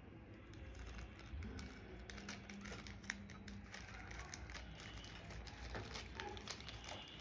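Handling a mechanical keyboard and its packaging: a quick, irregular run of small clicks mixed with crinkling.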